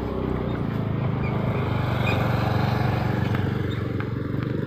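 A motor vehicle's engine passing by, its steady running growing louder to a peak midway and then fading.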